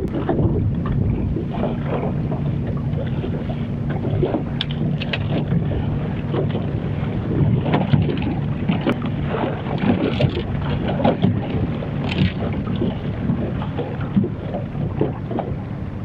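A boat motor running steadily at trolling speed, a low even hum, with wind buffeting the microphone. Scattered short clicks and knocks of handling sound over it.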